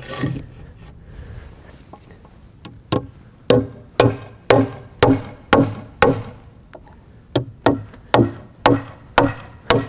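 Hammer driving nails into a wooden 2x4 brace: sharp wooden blows about two a second, starting about three seconds in, a short pause, then a second run of blows.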